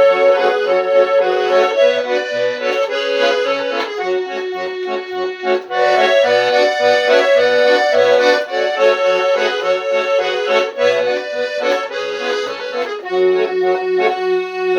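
Kuban garmon (Russian button accordion), freshly restored and fine-tuned in A major, playing a tune: a melody over regular left-hand bass notes and chords, ending on a held chord.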